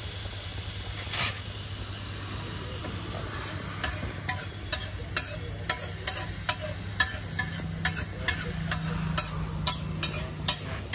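Street-stall griddle cooking: a steady frying sizzle with a brief hiss about a second in, then sharp metal clinks of a spatula on the steel griddle, about two a second, from about four seconds in.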